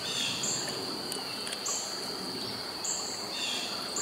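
Evening insect chorus in a wooded stream valley: a constant high-pitched trill, with a second insect's chirps repeating a little more than once a second, over a soft wash of a shallow stream.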